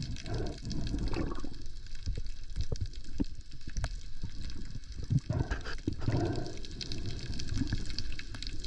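Water sloshing and splashing close to the microphone, with a low rumble and many scattered short clicks and knocks.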